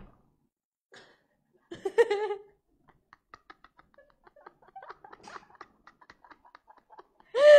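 Young women's laughter and squealing: a short squeal about two seconds in, faint scattered ticks and rustles, then a loud burst of wavering laughter near the end.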